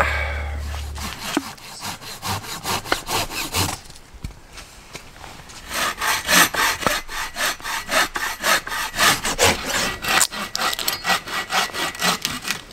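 Hand saw with a long curved blade cutting through a dead log in quick back-and-forth strokes: a short run of strokes, a pause of about two seconds, then a longer steady run at about three strokes a second.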